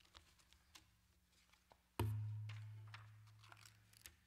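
Faint paper rustling and small clicks at a pulpit. About two seconds in comes a sudden low thud that rings on as a low hum and fades away over about two seconds.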